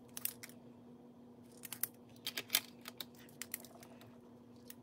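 Pen colouring in a paper challenge sheet: a few clusters of short scratchy strokes and light taps.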